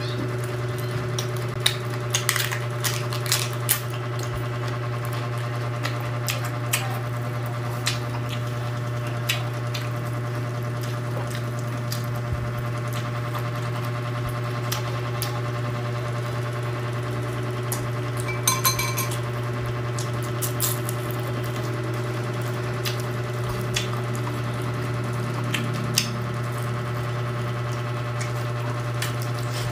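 Crunching and chewing of raw cabbage leaves close to the microphone, heard as scattered sharp crackles, over a steady low hum.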